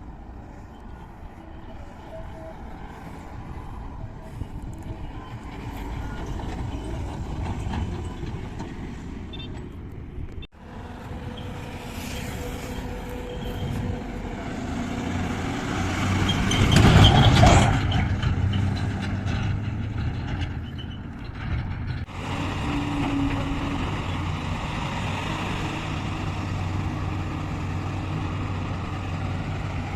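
Diesel engines of a JCB backhoe loader and a Tata 2518 tipper truck running at work. About halfway through, a loud rushing burst lasts a couple of seconds, and the sound breaks off abruptly twice.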